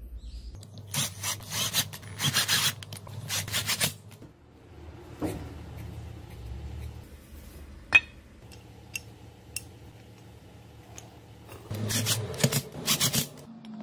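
Bursts of rasping, scraping metal from hand work on an angle grinder's aluminium housing and screws: a screwdriver turning screws into the housing near the end, with a sharp click about eight seconds in.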